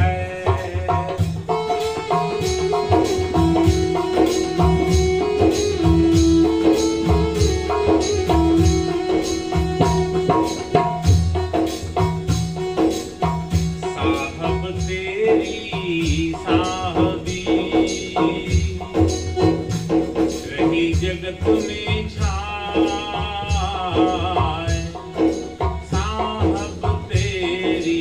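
Devotional bhajan music: a hand drum keeps a steady beat under regular jingling percussion and a held melody line. In the second half a singing voice comes in, wavering in pitch.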